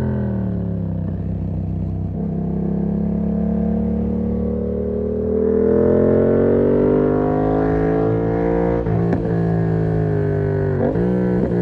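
Yamaha MT-07's parallel-twin engine through an SC Project exhaust with the dB killer fitted, under way: the revs fall off at first, then climb steadily for several seconds, with a short break about nine seconds in and a quick dip and rise near the end.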